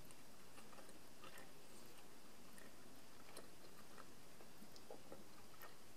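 Faint, soft chewing of a piece of chewy licorice, with a few small scattered mouth clicks.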